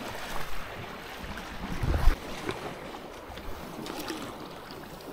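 Paddle strokes and water washing and splashing around a stand-up paddleboard, with wind rumbling on the microphone and a low thump about two seconds in.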